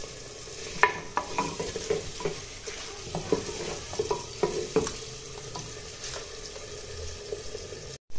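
Onions frying in desi ghee in a clay pot, sizzling steadily, while a wooden spoon stirs them, scraping and knocking against the pot in irregular clicks.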